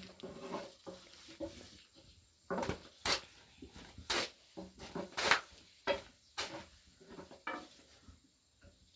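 Long thin wooden rolling pins knocking and clacking on round wooden boards as thin flatbread dough is rolled out and flipped. There are about seven sharp knocks at irregular intervals, starting about two and a half seconds in.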